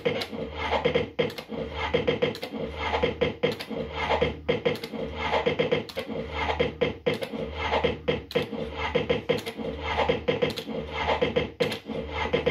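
Fruit machine (JPM Red Hot 6) spinning its reels over and over at about one spin a second. Each spin is a short low run of the reel motors ending in sharp clacks as the reels stop, over a steady electronic tone.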